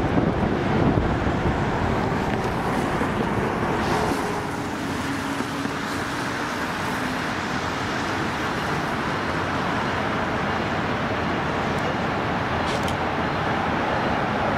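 Steady roar of road traffic, with a faint low hum from a New Jersey Transit train slowly drawing closer.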